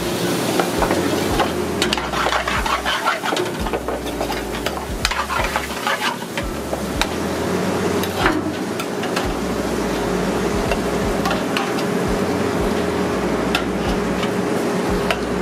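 Metal ladle stirring and scraping chunks of meat in curry sizzling in an aluminium pan, with repeated clinks of the ladle against the pan. A steady low hum runs underneath.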